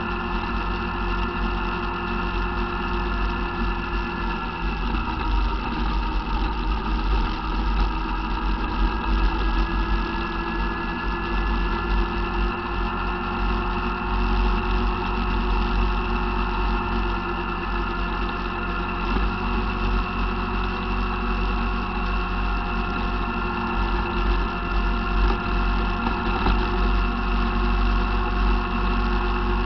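ATV engine running steadily while under way, its note shifting slightly about five seconds in, over a continuous low rumble from the ride.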